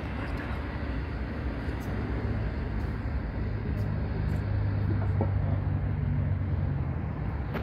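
A low engine drone over a steady outdoor rumble. It swells about halfway through and eases off again near the end.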